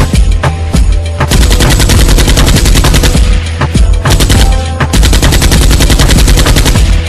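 Rapid automatic gunfire in two long bursts, with scattered shots between, over a steady deep bass.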